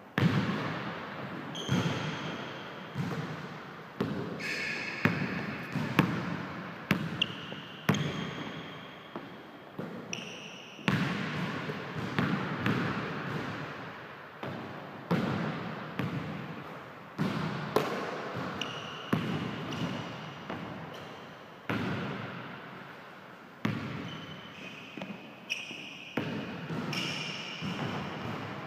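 Basketball bouncing on a hardwood gym floor, with many sharp impacts at irregular spacing that echo in the large gym. Short high squeaks of sneakers on the court come and go between the bounces.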